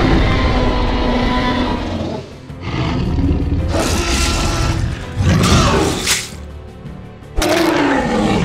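Dinosaur roar sound effects over background music: several loud roars in turn, the first and last falling in pitch.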